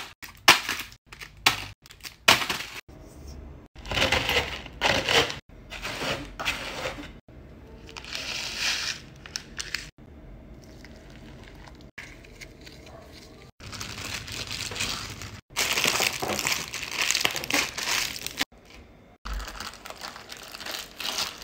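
Plastic packaging and a plastic bag crinkling and rustling as vanilla sandwich cookies are crushed and a dough is worked inside the bag. It comes in short bursts that cut off abruptly.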